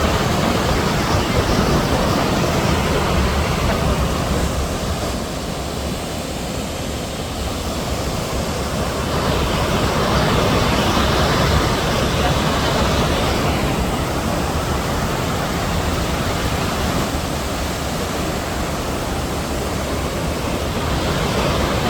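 Naso no Shirataki waterfall: a steady rush of falling water.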